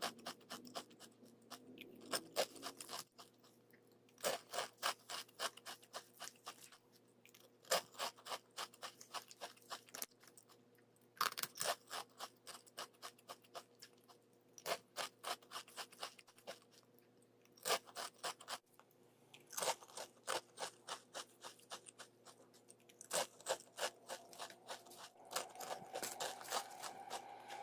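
Close-up crunching of a crisp snack being chewed, in bursts of rapid crackles every few seconds with short quiet pauses between.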